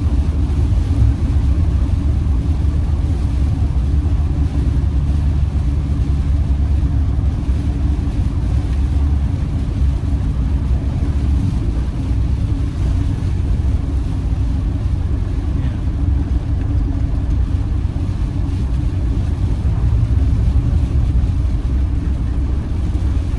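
Camper van driving along: steady low engine and road rumble, heard from inside the cab.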